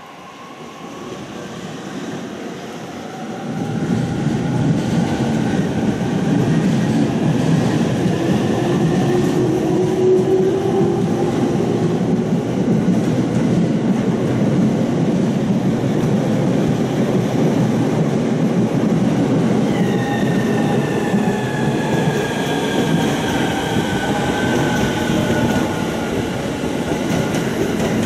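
JR E231-series electric commuter train running past on the rails. Its steady rumble and wheel clatter grow louder over the first few seconds as it closes in. Over it sit whines that slide slowly down in pitch, and a fresh one starts about twenty seconds in.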